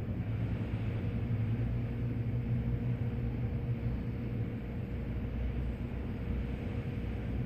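A boat's engine droning steadily, a low hum with a faint higher whine, over an even hiss.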